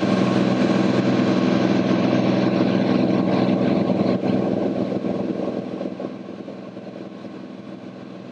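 Cirrus SR22T's turbocharged six-cylinder engine and propeller droning steadily at one pitch, heard inside the cockpit; the drone grows noticeably quieter about five seconds in.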